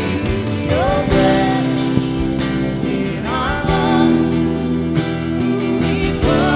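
Live worship music: a woman and a man singing together over strummed acoustic guitar and sustained keyboard chords.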